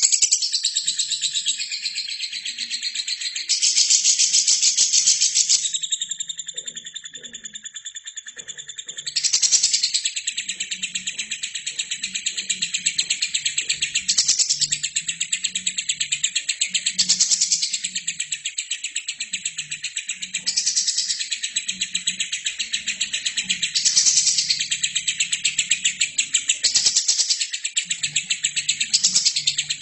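Albino lovebird singing one long, unbroken, very fast chatter, swelling louder every three to four seconds.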